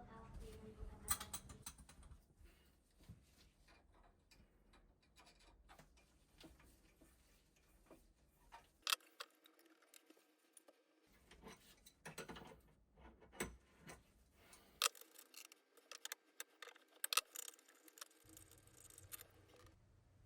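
Scattered light clicks and knocks of small toilet ball-tap (float valve) parts being handled and fitted, with no steady tone.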